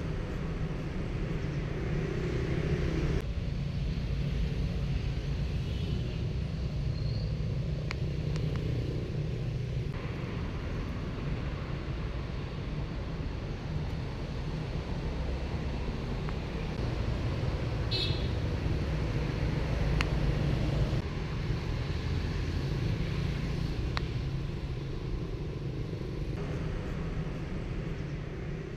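Steady street traffic noise, mostly a low rumble, with a few faint clicks and one short high chirp about two-thirds of the way through.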